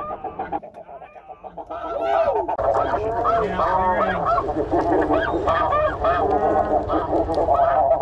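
A large flock of snow geese calling overhead: many high, overlapping honks. The calling is faint for the first second or two, then swells, with many birds calling at once.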